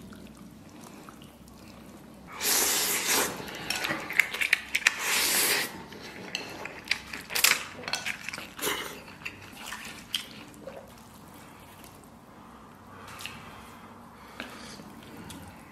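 Close-miked slurping of saucy instant noodles, loud and hissing for about three seconds starting some two seconds in. Wet chewing and smacking follow, with sharp clicks of chopsticks and plate that thin out toward the end.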